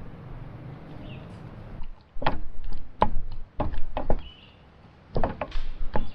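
A spoon knocking and clattering against a cooking pot while breaking up meatballs in sauce. The sharp knocks start about two seconds in and come irregularly, some in quick pairs.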